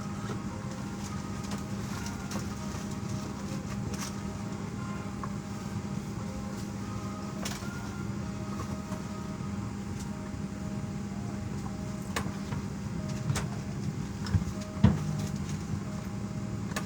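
Steady airliner cabin noise while the plane sits at the gate boarding: an even hum from the cabin air system, with scattered clicks. A few knocks come late on, the loudest and sharpest about fifteen seconds in.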